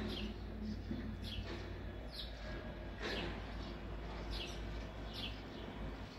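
A small bird chirping over and over, short high notes that each sweep downward, about one or two a second, over a steady low background rumble.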